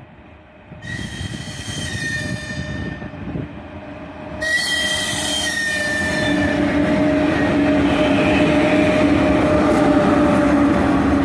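3ES5K "Ermak" electric locomotive sounding its VL80S-type whistle twice in greeting: a high-pitched blast about a second in, then a louder one about four and a half seconds in. Then the locomotive and its freight train pass close by, with a rising rumble of wheels and a steady hum.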